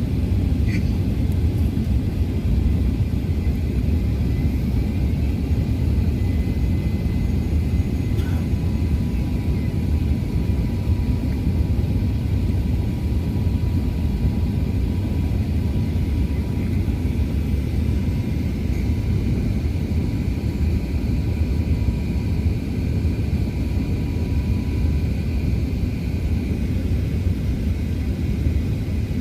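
Steady low rumble of an Airbus A380 heard from inside the cabin: engine and airflow noise, with a faint steady whine.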